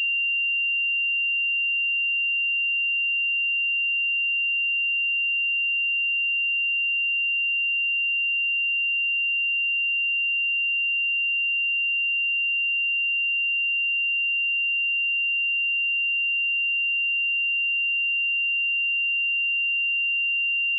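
A steady 2775 Hz sine-wave test tone, one pure high-pitched note held at constant level without a break.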